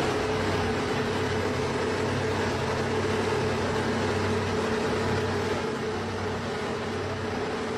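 Diesel engines of multi-axle self-propelled modular transporters running steadily while carrying a stone building, a constant engine hum over a broad wash of noise.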